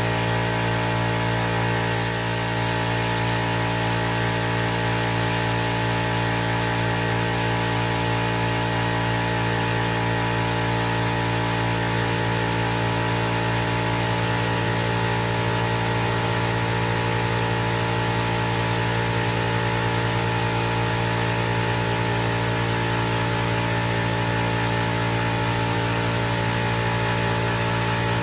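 Paint spray gun hissing steadily as it sprays clear coat onto a car; the full hiss comes on about two seconds in, over a steady machine hum.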